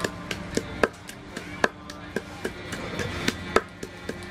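Wooden pestle pounding chillies and garlic in a large clay mortar for green papaya salad, a steady run of sharp knocks about three to four a second.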